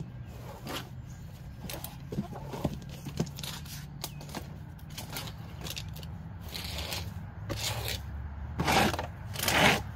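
A long-handled scraping tool dragged through a chicken coop's floor litter in repeated short strokes, scraping out old bedding. There are two louder, longer scrapes near the end.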